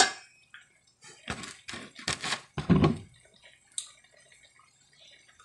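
Metal spatula clanking and scraping against a large aluminium wok while stirring pork belly: one sharp clank at the start, then about five quick scraping strokes a second or so later, and a small click after.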